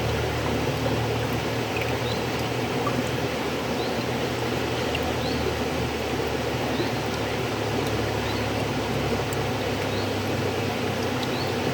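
River water flowing steadily, an even rushing noise, with faint short high chirps recurring every second or so.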